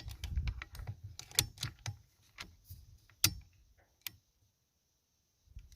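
Irregular small clicks and taps from handling the airgun and its pellets, with one sharper click about three seconds in, then dead silence for about a second near the end.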